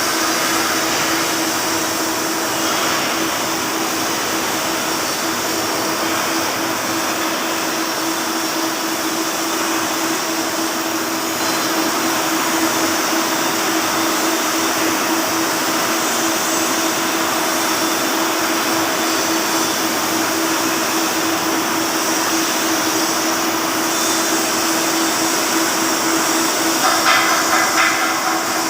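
Flux-cored arc welding with 1.2 mm wire: a steady, loud arc hiss with a constant hum beneath it, turning rougher and louder near the end.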